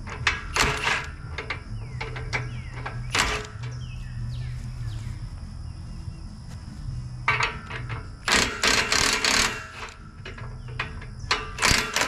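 Scattered metal clanks and knocks from hand tools and heavy steel as a bolt-on tow hitch is worked loose from a truck's front D-rings. A denser run of rattling and scraping comes about eight seconds in. A steady low hum runs underneath.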